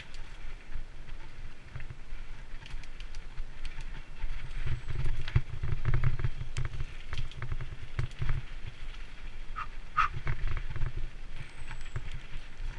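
Mountain bike descending a dirt singletrack: wind buffeting the camera microphone in a constant rumble, tyres crunching over the dirt and leaves, and the bike's frame and parts rattling with many sharp clicks over bumps. A short squeak sounds about ten seconds in.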